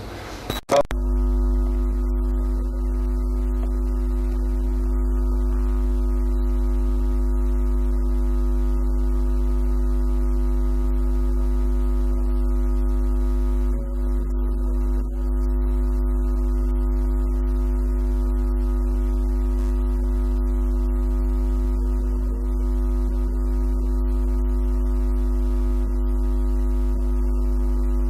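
A steady, unchanging drone: a deep hum with two strong held pitches and several fainter ones above. It switches on abruptly with a click about a second in.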